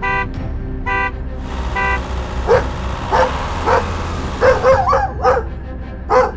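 A vehicle horn gives two short toots, then a dog barks repeatedly, about eight short barks, over a steady low rumble.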